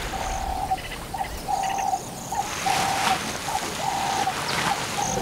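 Dove cooing: a steady repeated series of short, low coos, alternating longer and shorter notes, with faint high chirps of other birds behind.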